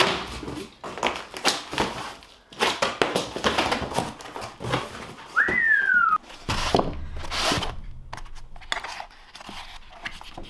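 Metal hand tools clattering and knocking, with packaging rustling, as tool trays are unpacked. About five and a half seconds in comes one short whistled note that falls in pitch.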